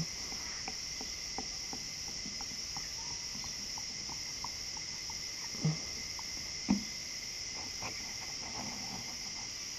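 Steady high-pitched chirring of insects, with a few faint ticks and two soft knocks in the middle.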